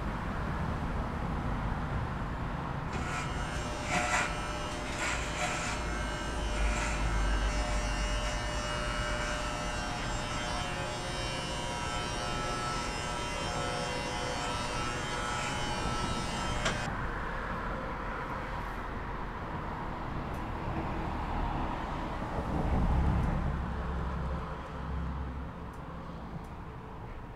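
Handheld electric shaver buzzing steadily against skin, starting about three seconds in and cutting off suddenly a little past the middle. A low rumble runs underneath and swells briefly near the end.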